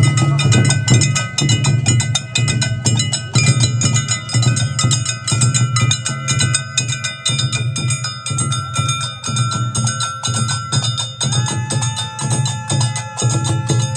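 Street percussion of a masked Imaachar troupe: large double-headed drums beaten with sticks in a fast, dense rhythm, with clattering strokes over a deep drum boom. A high held tone runs above the drums and changes to a new pitch about eleven seconds in.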